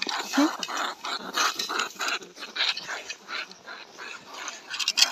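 A trapped greater bandicoot rat giving an irregular string of short, harsh, breathy bursts, about two or three a second, as a cornered rat does in a cage trap.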